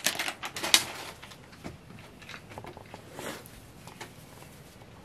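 Crisp rustling of suit fabric being unfolded and shaken out, sharpest in the first second, then soft intermittent handling rustles.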